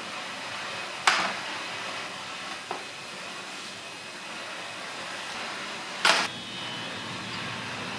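Metal clinks of tools and compressor parts being handled during disassembly of a car air-conditioning compressor: a sharp clink about a second in, a faint tick near three seconds, and a longer clink about six seconds in, over a steady background hiss.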